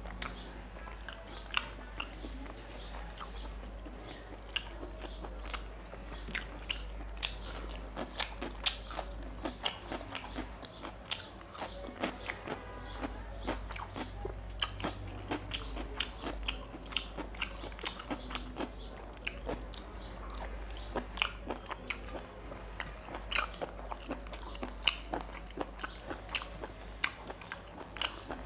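Close-miked mouth sounds of eating rice and mutton liver curry by hand: chewing with many small, irregular wet clicks and smacks. There is soft squelching as fingers mix the rice and curry on the plate.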